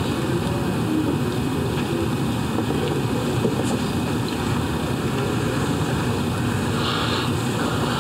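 Steady low rumbling room noise, even throughout with no speech.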